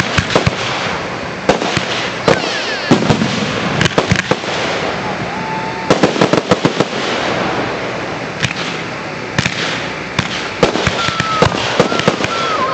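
Aerial fireworks shells bursting, many sharp reports coming in quick clusters throughout.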